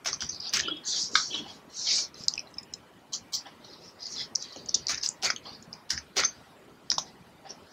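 Typing on a computer keyboard: irregular keystroke clicks as a command is entered.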